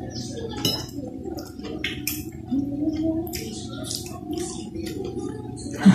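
Close-miked chewing and wet mouth smacks from eating rice with sweet potato leaves. A metal spoon and fork clink and scrape on a glass plate, giving many short clicks.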